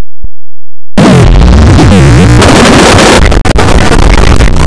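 Heavily distorted, clipping digital audio effects: a harsh, noisy din with warbling, bending pitches. It starts about a second in after a short blip.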